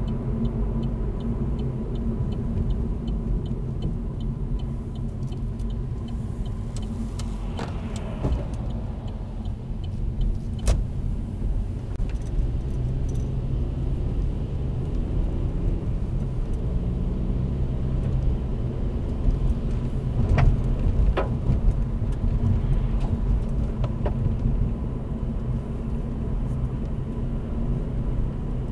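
Steady engine and tyre noise inside a 2016 Vauxhall Corsa 1.4-litre manual as it slows for a left turn and then speeds up again. The turn indicator ticks evenly over the first several seconds, and there are a few sharp knocks along the way.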